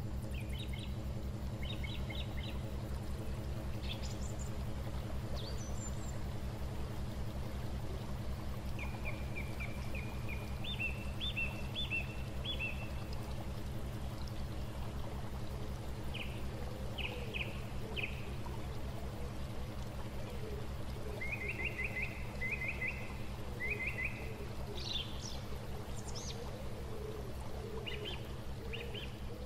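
A boat's engine runs steadily with a low, evenly pulsing drone. Over it, birds sing short phrases of quick repeated chirps every few seconds.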